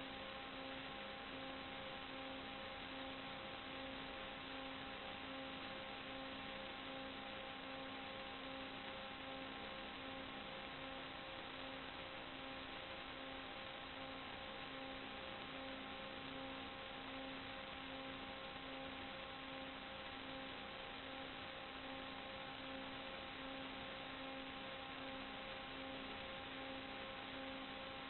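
Steady hiss with several constant electrical hum tones, one pulsing in an even beat, picked up on the audio channel of an analog FPV video link. None of it changes as the plane banks.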